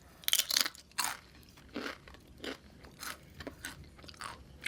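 Close-up mouth sounds of a person chewing food, a series of irregular crunches about every half second to second.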